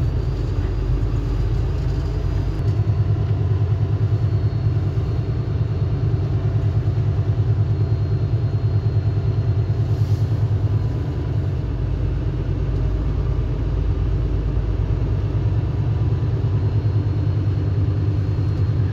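Kenworth W900 semi truck's diesel engine heard from inside the cab, pulling the loaded truck slowly forward at low revs with a steady low rumble.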